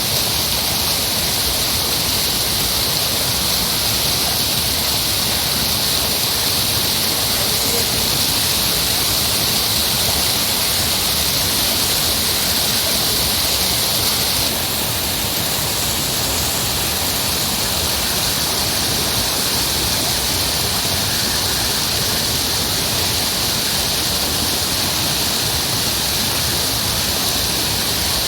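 Heavy rushing water, a steady hiss with no breaks. About halfway through it gets slightly quieter and its tone shifts a little.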